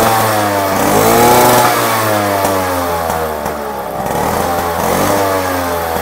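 Yamaha RX100's single-cylinder two-stroke engine revved twice from idle, each rev climbing and then falling back, the first peaking about a second and a half in and the second about five seconds in.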